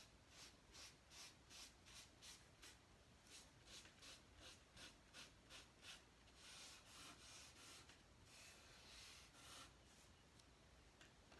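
Faint scratching of chalk on paper in short strokes, about two or three a second, then a longer stretch of continuous rubbing from about six seconds in to near ten seconds.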